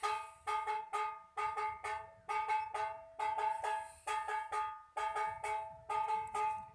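Background music: a quick, rhythmic tune of plucked notes that each ring and fade quickly.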